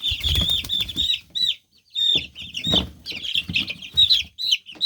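A brood of young chicks peeping almost without pause, a rapid string of high, down-slurred peeps, with a few dull low bumps mixed in.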